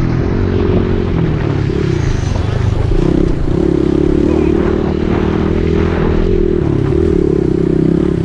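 Motocross dirt bike engine running hard on the track, its note dipping briefly several times as the throttle is rolled off and back on.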